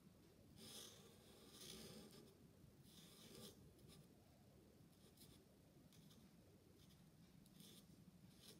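Faint scratching of a marker pen drawing short strokes on paper, several separate strokes, the clearest in the first few seconds and lighter ones later.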